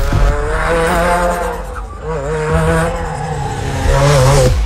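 Subaru WRX STI rally car's engine revving hard, its pitch rising and falling in quick blips, with a brief dip about two seconds in. It is loudest near the end and then cuts off suddenly.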